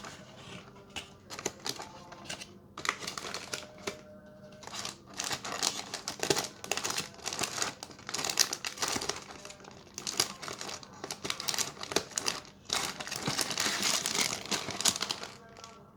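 Crinkly plastic snack pouches, Pedigree Dentastix 112 g packs, being handled, with irregular crackling and rustling that grows busier and louder from about five seconds in.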